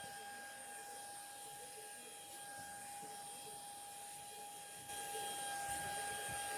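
Vacuum cleaner running with a steady whine while being worked over sofa upholstery to suck out the dust. It grows a little louder about five seconds in.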